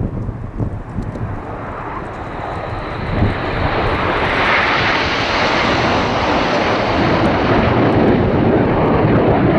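Jet engine noise of a formation of BAE Hawk T1 jets passing overhead. It grows steadily louder over the first few seconds and stays loud from about four seconds in.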